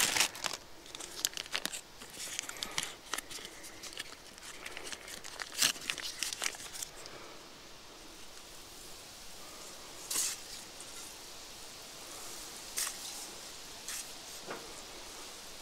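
Plastic bread bag crinkling and rustling as hamburger buns are handled, with small clicks and taps, busy for the first half. Then it goes quieter, with only a few single clicks.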